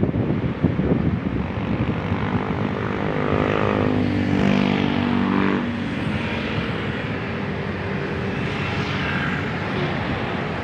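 An aircraft passing overhead: a steady rumble with a humming engine tone that swells from about three to six seconds in, then fades back into the rumble.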